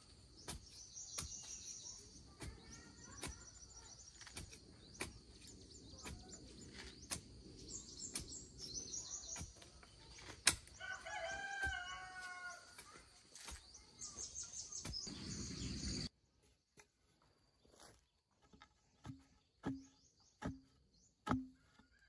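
Rural ambience: a rooster crows once about halfway through, over small birds chirping, a steady high insect hum and scattered sharp knocks. After an abrupt cut about three-quarters in, the birds and hum drop away, leaving a slow series of knocks, each with a short low ring.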